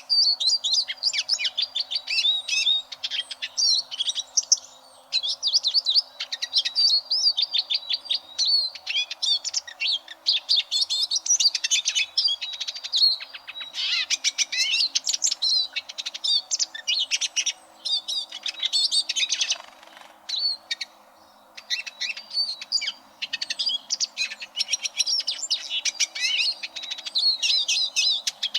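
Eurasian siskin singing: a fast, nearly unbroken twittering of high chirps, trills and wheezy notes, with a short pause about twenty seconds in.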